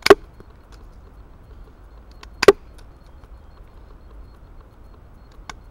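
Small garden pruning shears snipping through a thin green branch: two sharp snips about two and a half seconds apart, and a fainter third near the end.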